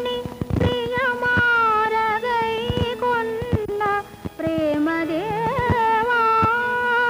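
Old Telugu film song music: a long, held melody line that bends and wavers in pitch, over light percussion strokes.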